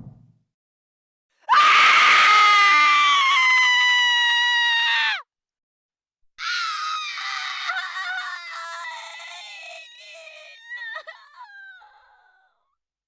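Two synthetic monster cries from a 1989 Digiffects sound-effects library. The first is a loud, high, screaming cry held for about three and a half seconds that bends downward as it ends. After a short gap comes a second, wavering cry that slowly fades out, with a few quick pitch wobbles near the end.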